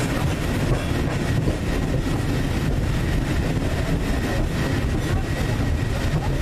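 Steady low rumble of a tram car running, heard from inside the carriage, with a faint steady high whine over it.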